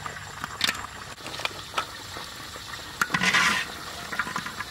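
Crispy fried potato rolls tipped from a wire skimmer into a metal tray: scattered clinks of metal on metal, and a short rustling clatter of the pieces about three seconds in.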